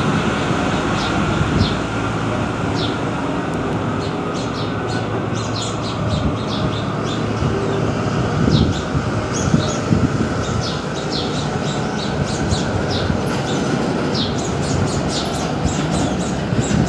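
Small birds chirping in short, high calls, scattered irregularly throughout and coming in quick runs at times, over steady low background noise.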